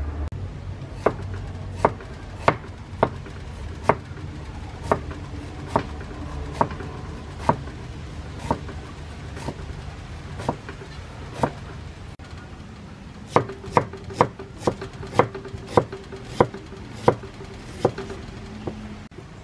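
Cleaver slicing an onion on a wooden chopping board: sharp single chops about one a second, coming faster for a few seconds near the end.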